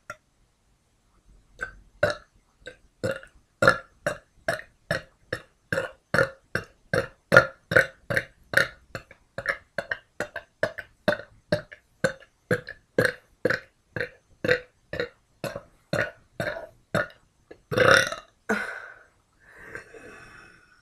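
A person burping in a fast, even run of short burps, about two a second, then one longer burp near the end and a fainter one after it.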